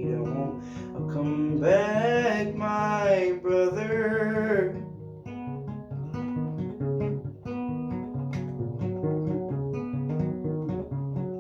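Acoustic guitar being picked, with a sung vocal line of long held, wavering notes about two seconds in that fades out around the middle, leaving the guitar picking on alone.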